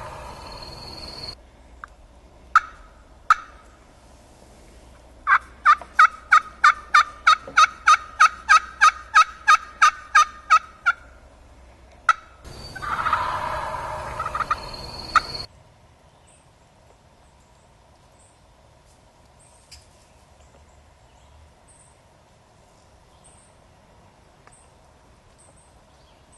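Wild turkey gobbling in the first second and again for a few seconds about halfway through. Between the gobbles come two sharp turkey calls, then a long, even run of about twenty yelps. The last seconds are quieter, with faint high chirps.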